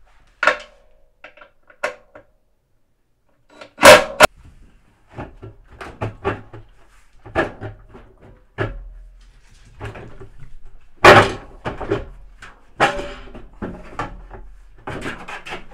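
Scattered knocks, clinks and thuds of hands working parts inside a stripped LG top-load washer's drum, with two loud knocks about four and eleven seconds in.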